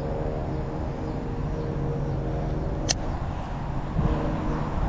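A steady low engine-like drone, with one sharp click about three seconds in.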